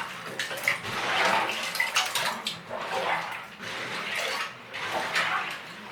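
Hands sloshing and rummaging through a tub of water, with occasional clicks of loose plastic Lego pieces knocking together.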